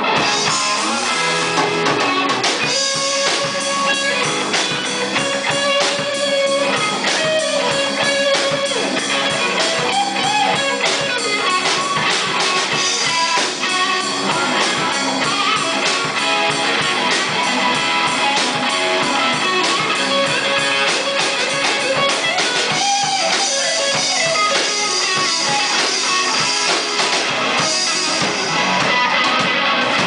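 Live rock band playing: electric guitars over a Gretsch drum kit, continuous and steady in loudness.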